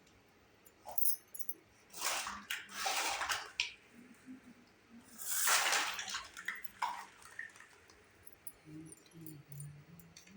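Miniature toy kitchen pieces being unpacked and handled: two rustling, scraping stretches of about a second each, with a few light clicks and taps.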